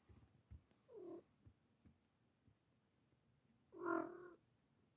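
Cat meowing twice: a short, faint call about a second in, then a longer, louder meow near the end.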